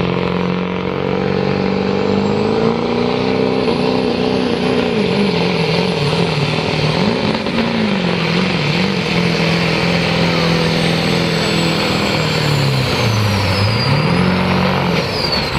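Ford Super Duty diesel pickup's engine under full load, pulling a weight-transfer sled. The engine note rises and falls as it pulls, dips sharply about two seconds before the end, then climbs back. A faint high turbo whistle rides over it and falls in pitch near the end.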